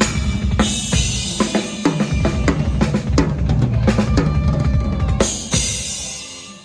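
Drum kit played at a sound check: a busy run of kick, snare and tom hits under cymbal wash, ending on a crash about five seconds in that rings out and fades.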